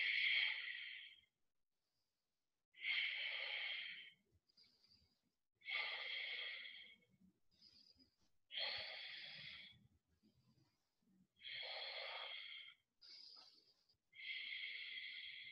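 A woman breathing audibly and slowly while holding a yoga pose: about six long breaths, each a little over a second, every three seconds or so, with silence in between.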